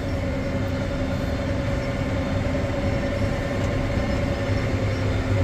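Massey Ferguson self-propelled swather running steadily while cutting barley: a constant engine and machinery drone with a steady whining tone.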